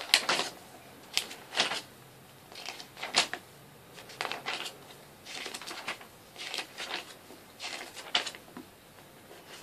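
Pages of a paper DVD booklet being leafed through and handled: short, irregular rustles of paper, about a dozen over the stretch.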